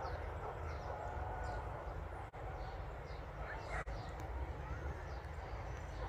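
Open-field ambience: wind rumbling on the microphone, with small birds calling in short, high, falling chirps over and over.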